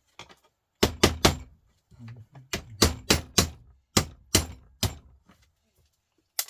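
Hammer blows on a Volvo truck starter motor being dismantled: about ten sharp metal knocks in quick groups of three or four, then one last knock near the end.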